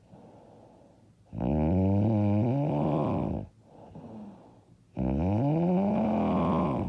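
A woman snoring loudly: two drawn-out, buzzing snores about two seconds each, the second one rising and then falling in pitch, with soft breathing between them.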